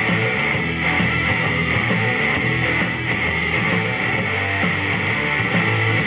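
Background rock music with distorted electric guitar, a steady dense band sound.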